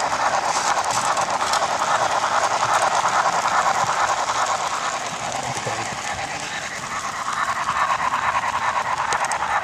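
HO-scale model steam locomotive running along the layout track: a steady whir and rattle from its motor and wheels on the rails, easing off a little midway and picking up again.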